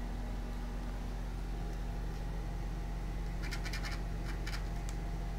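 Light scratching at the gap under a door, a short flurry of scratches about three and a half to four and a half seconds in, over a steady low hum.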